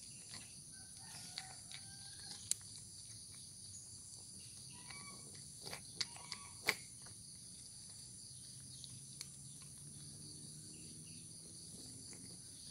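A cat crunching dry kibble: a few sharp crunches, the loudest about six to seven seconds in. Under it runs a steady high insect drone, with a few faint bird chirps in the first half.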